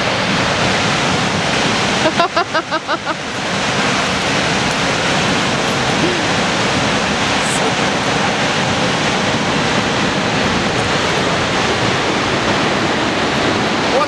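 A waterfall and the rapids below it rushing, a loud, steady wash of falling water heard close to the base of the falls. About two seconds in, a person's voice sounds briefly in short pulses over the water.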